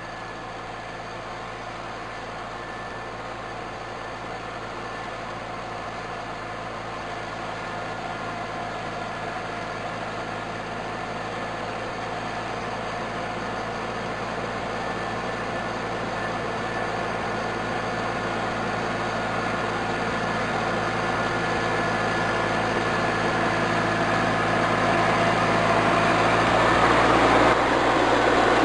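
Mahindra eMax 22 compact diesel tractor running at a steady engine speed while pulling cultivators through garden soil. It grows steadily louder as it approaches and is loudest near the end as it passes close by.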